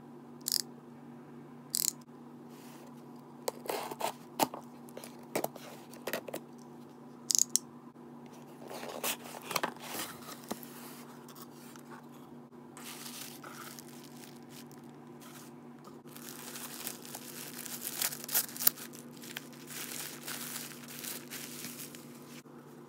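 Unboxing by hand: short clicks and scrapes of a box cutter slicing packing tape and of a cardboard box being opened, then several seconds of tissue paper rustling and crinkling near the end as a wallet is unwrapped. A steady low hum lies underneath.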